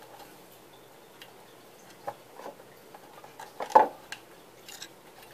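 Scattered small clicks and scrapes of fingers working a CRT's rubber anode cap and its metal clips, trying to squeeze it free, with one louder knock a little before four seconds in.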